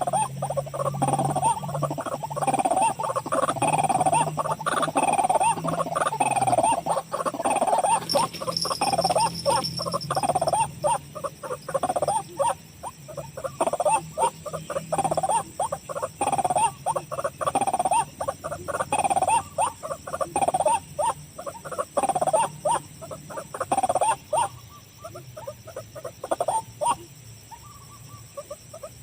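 White-breasted waterhen (ruak-ruak) calling: a long run of repeated croaking notes, about two a second, growing fainter over the last few seconds.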